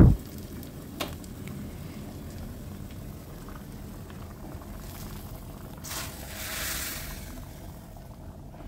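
A tadka of hot desi ghee with whole red chillies and spices poured into a pot of chana-rajma gravy, hissing and sizzling for about a second and a half around six seconds in. A light metal click about a second in.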